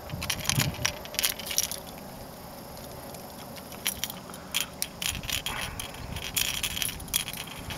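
Scattered clicks and rattles from handling a freshly landed largemouth bass with a hard-bodied lure hooked in its jaw, in short clusters over a low steady background.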